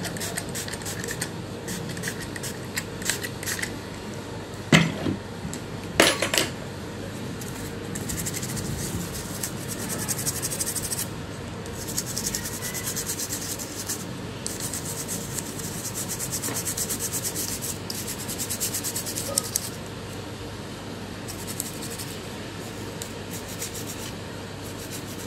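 Rapid scratchy rubbing strokes, in stretches, as the dust-fouled key and IR-sensor board of a Samsung LED TV is scrubbed clean; the dust is suspected of causing the TV's fault. A couple of sharp clicks about five and six seconds in.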